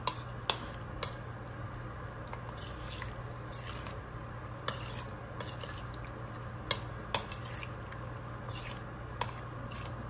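A utensil stirring shrimp in a thick batter, with a few sharp clinks against the bowl at irregular moments.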